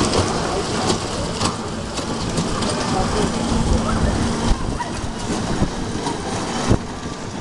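A children's ride of small truck-shaped cars running around a track: a steady noisy rumble with a low steady hum for the first few seconds and a few light knocks, mixed with background voices.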